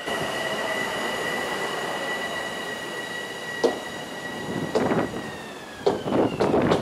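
Long Island Rail Road M7 electric train pulling into the station and slowing: a steady high whine over the rumble of the cars, the whine dipping in pitch about five seconds in. Short squeals from the wheels or brakes start a few seconds in and come more often near the end.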